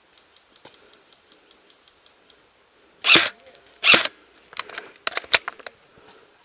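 Two loud airsoft gun shots about a second apart, followed by a quick scatter of fainter sharp cracks and clicks, likely more shots or BBs hitting brush.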